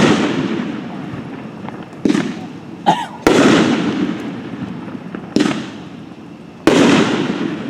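A Red Rhino 'Rifle' 500-gram, 9-shot firework cake firing: five loud aerial bursts one to two seconds apart. Each sharp bang trails off in a long echoing decay, and there is a smaller pop just before the third.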